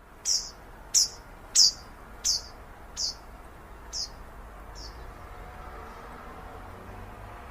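A bird calling: seven short, high chirps, each falling in pitch, coming less than a second apart and growing fainter and slower, over faint steady background noise.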